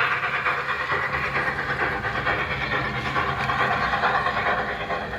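Toy train running on its track: a dense, fine rattle of small wheels on the rails over a steady low motor hum, gradually fading.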